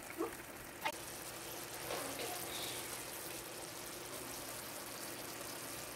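Fish steaks in tomato sauce simmering in a frying pan: a soft, steady bubbling hiss, with a faint click about a second in.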